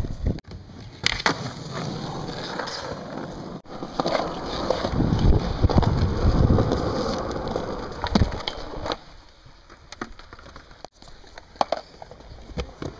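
Wheels rolling over concrete and asphalt, first from a skateboard and then from inline skates, with scattered sharp clacks and knocks. The rolling is loudest in the middle and fades to a lighter rumble with clicks near the end.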